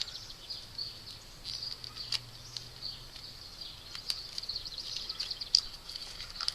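Steady, high-pitched background chirping of outdoor wildlife, with a few sharp clicks scattered through it.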